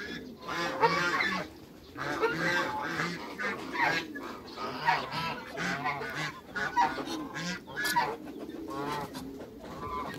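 Domestic geese honking repeatedly, many calls following one another quickly with a short lull about two seconds in.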